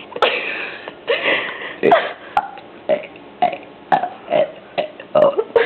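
A woman burp-talking the letters of the alphabet: a string of short burps, about two a second.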